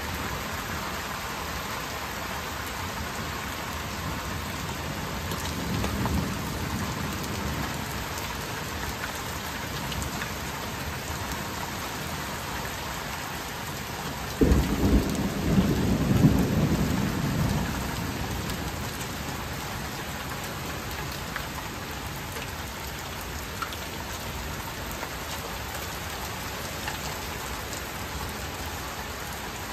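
Heavy rain falling steadily. A low rumble of thunder comes about six seconds in, then a loud, sudden thunderclap near the middle rolls on for about three seconds.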